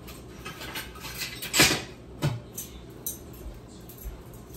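Kitchen utensils and dishes clinking while ingredients are measured, with a louder short knock about a second and a half in and a smaller one just after two seconds.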